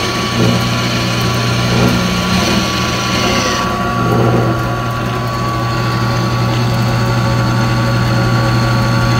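WEN variable-speed benchtop drill press running with its belt cover open: a steady motor hum with the belt turning on the variable-diameter pulleys as the speed is turned down. The higher-pitched part of the noise falls away a little under four seconds in.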